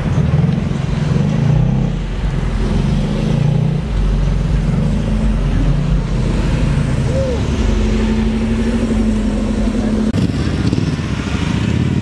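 Cars driving slowly past one after another, their engines running with light revving. One engine holds a steady note for a couple of seconds past the middle.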